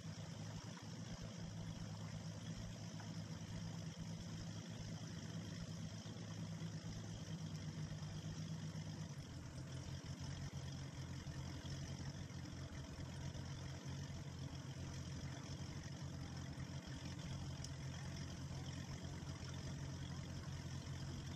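2004 Donzi 22 Classic's V8 sterndrive engine running steadily at low speed, its low note shifting about nine seconds in.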